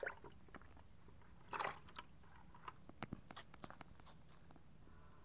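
Small fish handled out of a bucket of water and dropped onto wet concrete: a short splashy rustle about a second and a half in, then a run of sharp clicks and slaps.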